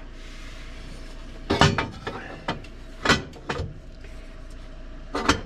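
Metal tools being handled: a few sharp clinks and clanks, some ringing briefly, spread over several seconds.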